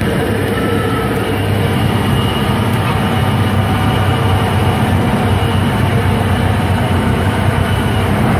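Cessna 150's Continental O-200 four-cylinder engine and propeller running steadily, heard inside the small cabin.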